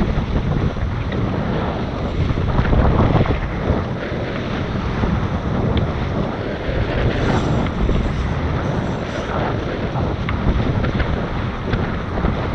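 Steady wind noise on the microphone with water rushing past the hulls of a Tornado racing catamaran sailing upwind.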